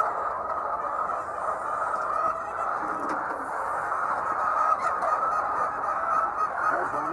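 A flock of egg-laying chickens calling together, a steady chorus of many overlapping clucks.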